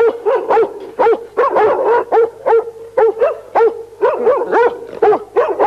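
Large dog barking repeatedly behind a gate, a fast unbroken run of short barks, about two or three a second.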